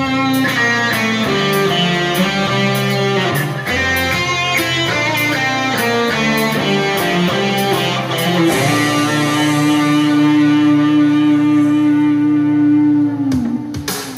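Music Man Axis electric guitar, overdriven through a Mooer Friedmien Micro Preamp with delay, playing a single-note melody line. About two-thirds through it settles into one long sustained note that drops in pitch and cuts off near the end. Steady low backing chords sit underneath.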